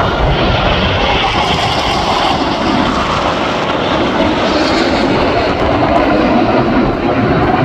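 Four F/A-18 Hornet jet fighters flying past in formation: a loud, steady jet roar whose pitch slowly falls.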